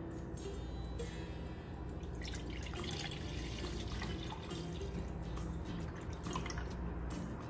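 Milk pouring from a jug into a stainless steel saucepan: a steady splashing stream of liquid that starts about two seconds in.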